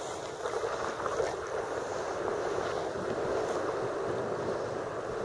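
Sea water washing and lapping against rock and kayak hulls at a sea cave mouth: a steady, even rush of water.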